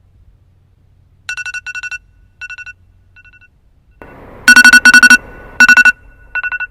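An electronic ringing tone in short bursts of a fast trill at a fairly high pitch, repeated over and over. It is faint at first and much louder from about four and a half seconds in, over a steady hiss that starts about four seconds in.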